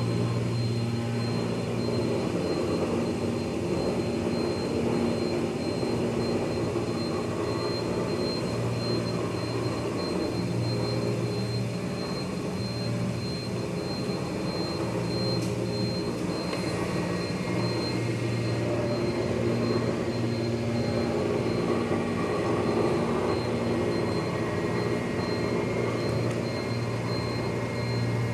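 Rubber-processing machinery running steadily: a continuous mechanical rumble with a low hum that drops out briefly now and then, and a faint high whine.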